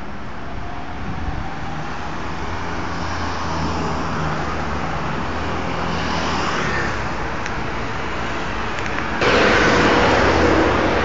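Road traffic: cars passing on a city street, engines and tyres rumbling and swelling as a car goes by mid-way. About nine seconds in the sound jumps suddenly to a louder rush of noise.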